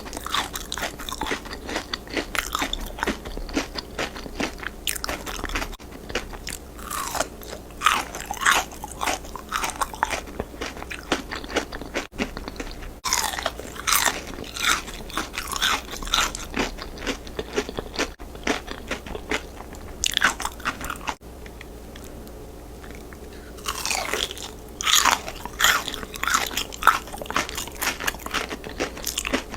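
Close-up crunching and chewing as a person bites into crispy fried chicken, dense crackly crunches coming in quick runs with a brief lull about two-thirds of the way through.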